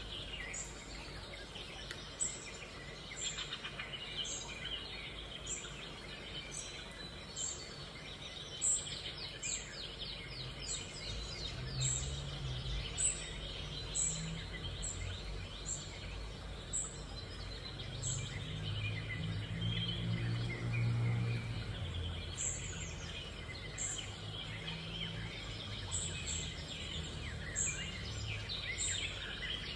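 Birds chirping repeatedly over steady background noise, with a low rumble swelling for several seconds around the middle.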